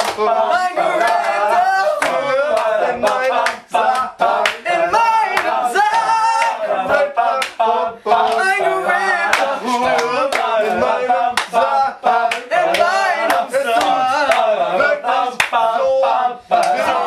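Group of young men singing loudly together in a small room, with frequent hand claps throughout.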